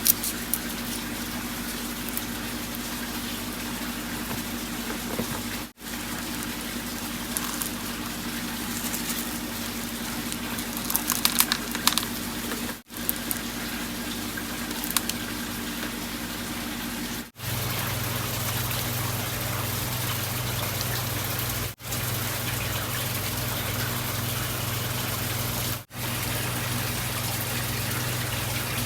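Water running and splashing steadily in an aquaponics system, with a steady low pump hum beneath it. The sound is broken by several abrupt cuts, and a few sharper ticks come about halfway through.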